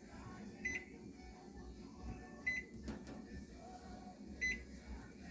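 Microwave oven keypad beeping three times, each a short high beep about two seconds apart, as the oven is set and started to heat a baby bottle.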